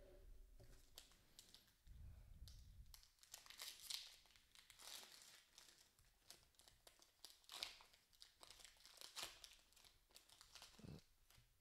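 Foil wrapper of an Upper Deck hockey card pack crinkling and tearing as it is opened by hand, in faint irregular crackles with a few louder ones.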